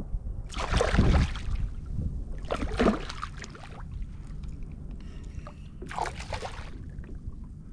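Hooked barracuda thrashing and splashing at the water's surface as it fights the line, in three separate splashes about a second each.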